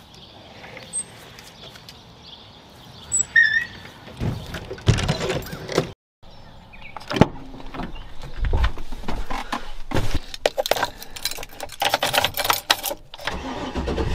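A couple of faint bird chirps, then a run of knocks and clatter from vehicle doors being opened and shut, with keys rattling in the ignition; a vehicle engine starts near the end.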